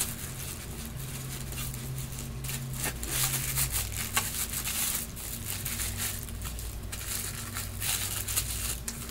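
Gift wrapping crinkling in irregular rustles as a wrapped present is pulled open by hand.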